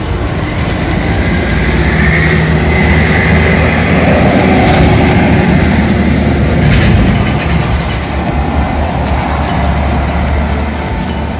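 Road traffic: motor vehicles driving past on the street, growing louder to a peak about midway and then easing off.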